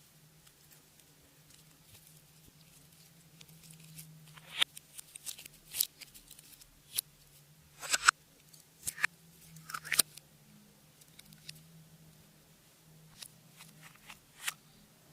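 Clear slime being worked by hand, giving irregular sticky clicks and crackling pops with quiet gaps between them, over a faint steady hum.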